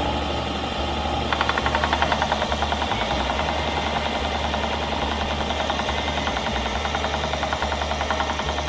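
Benchtop belt sander running, with a pine board pressed flat on the moving belt from about a second in, adding a fast, evenly pulsing rasp as it sands the board's end down.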